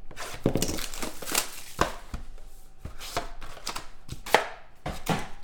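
Trading cards and card packs being handled on a table: irregular sharp taps and clicks with light rustling, one tap louder than the rest a little past four seconds in.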